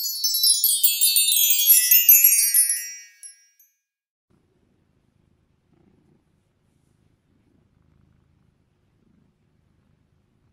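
A shimmering, tinkling chime sound effect for an intro logo: many bright bell-like tones cascading downward in pitch for about three seconds, then dying away. After that only faint low sounds remain.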